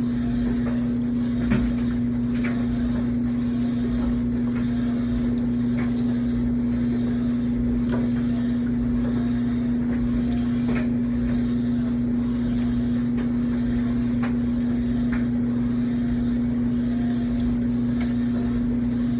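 GE Hydrowave top-load washing machine agitating, with a steady low groan over a rumble and faint clicks every second or two, and one sharper knock about a second and a half in. The owner is unsure whether this groaning during agitation is normal.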